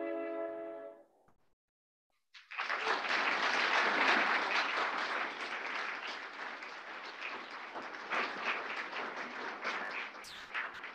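A small wind-and-string ensemble's final held chord cuts off about a second in. After a short silence, an audience applauds, loudest early on and thinning to scattered claps near the end.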